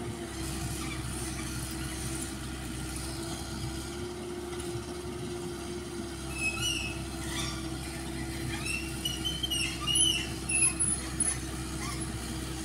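Komatsu PC78UU-6 mini excavator's diesel engine running with a steady hum while the machine works soil. From about six seconds in, short high squeaks come over it again and again, most of them near the end.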